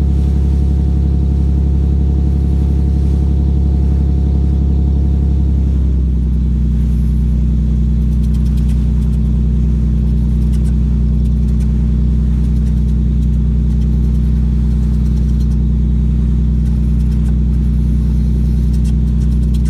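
A swordfishing boat's engine running steadily under way: a loud, low drone. Its note shifts slightly about six seconds in, then holds steady again.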